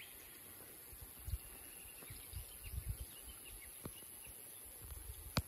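Quiet rural outdoor ambience: scattered faint, short bird chirps, with irregular low thumps and one sharp click near the end.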